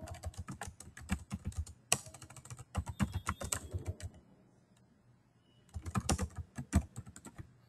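Computer keyboard being typed on: rapid runs of key clicks, a pause of about a second and a half, then another quick run near the end.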